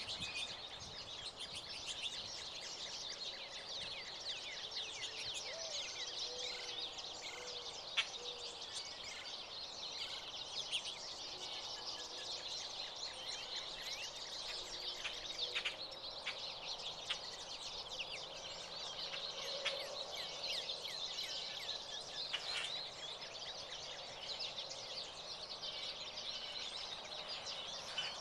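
American goldfinches chirping and twittering, a dense steady chatter of short high notes, with a few sharp clicks scattered through.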